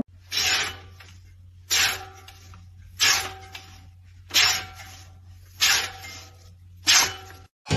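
Helical cutting reel turning slowly past its bedknife, each blade passing with a hissing swipe about every 1.3 seconds, six in all, over a steady low hum. A sheet of paper is held against the bedknife, the usual check of how cleanly the reel cuts against the knife.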